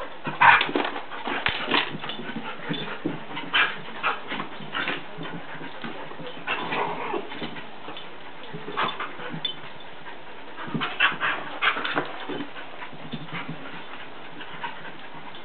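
A Jack Russell terrier and a border collie play-fighting, with short whimpering yips and scuffling noises coming in irregular bursts. The busiest clusters come about half a second to two seconds in and around eleven to twelve seconds in.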